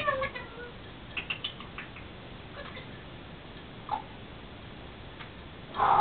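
African grey parrot making a few quick clicks with its beak and tongue, then a loud pitched call near the end.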